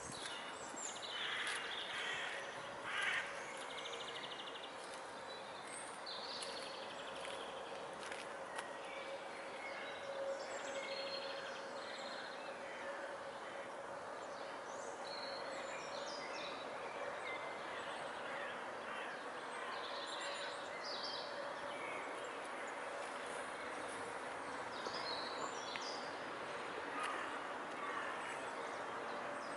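Scattered short bird calls over steady background noise, with a faint steady hum under them.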